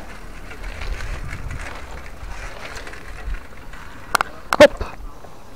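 Bicycle rolling along a paving-slab pavement: a steady low rumble from the tyres and frame. About four seconds in, as the bike reaches the kerb, there are two or three short sharp squeaks or clicks.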